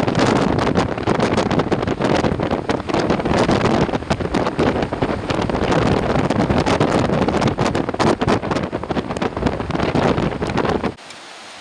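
Strong gusty wind buffeting the microphone in a loud, uneven rush, cutting off abruptly near the end to a quieter steady hiss.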